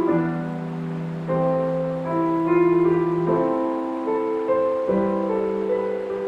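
Slow, gentle solo piano music with held notes, over a soft, steady background of water sound.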